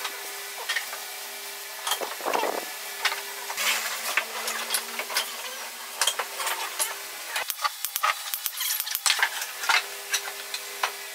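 Pine pieces being handled and fitted together on a wooden workbench: many light knocks, clicks and rubbing scrapes of wood on wood, over a faint hum that drops out for a couple of seconds in the middle.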